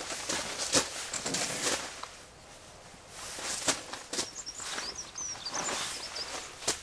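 Boots scuffing and crunching on gravel in irregular bursts, with a few sharp clicks. Small birds chirp in the background several times in the second half.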